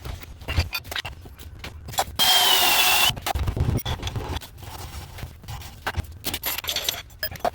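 A power drill runs in one short burst of about a second, with a steady whine, as the gas line is fastened to the wall; around it are scattered clicks and knocks of tools and fittings being handled.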